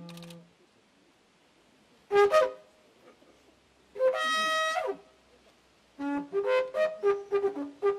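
A wind instrument playing a slow, spaced-out phrase: a held note dies away, then after a pause come a short figure and another held note. From about six seconds in it plays a quick run of short, detached notes.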